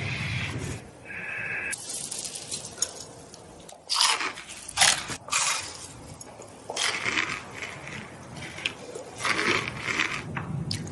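Crunchy food being bitten and chewed close to the microphone, in irregular sharp crunches.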